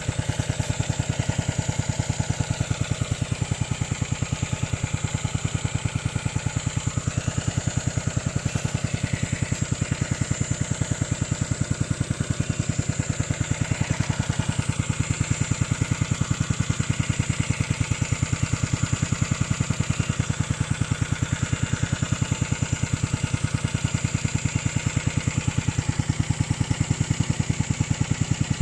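Remote-controlled lawn mower's engine running steadily at an even speed, with a rapid regular pulse and a constant high whine over it.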